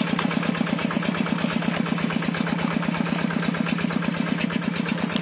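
Small engine that drags a fishing net through a pond, running steadily with a fast, even putter.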